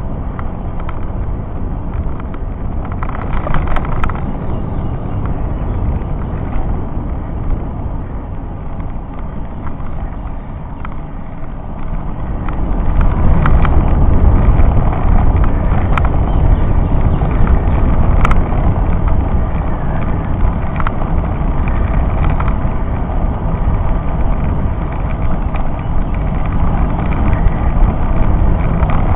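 Wind buffeting and road rumble on the microphone of a camera moving with a bicycle on a climb: a steady low noise that gets louder about twelve seconds in, with a few faint clicks.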